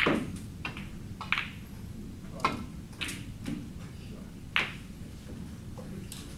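Snooker cue tip striking the cue ball with a sharp click, followed by several lighter clicks of balls. The cue ball hits the yellow with a second sharp click about four and a half seconds in.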